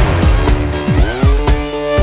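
Background music with a steady beat and sliding, pitch-bending synth tones.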